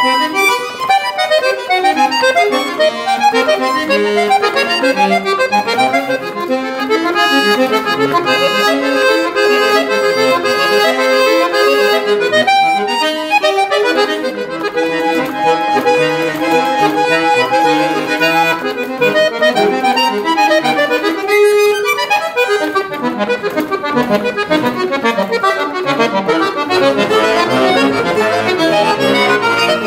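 Solo piano accordion playing a classical piece in quick, busy passages of notes with bass parts underneath.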